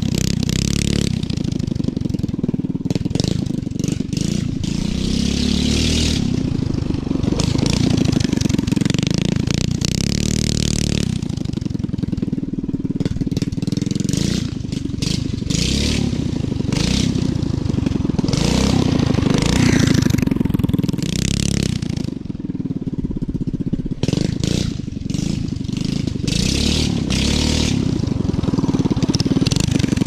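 Mini bike with a Harbor Freight Predator single-cylinder engine and torque converter being ridden, the engine note rising and falling with throttle and swelling and fading as the bike circles nearer and farther away.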